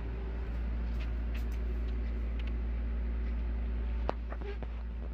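A steady low mechanical hum, with a few faint clicks and a sharper click about four seconds in.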